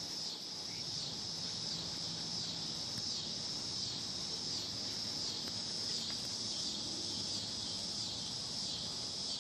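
Steady high-pitched insect chorus with a slight wavering pulse.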